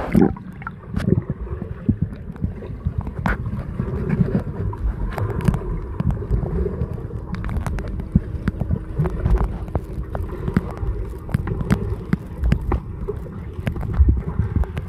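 Muffled swirling water, low and rumbling, with many short clicks and knocks scattered through it.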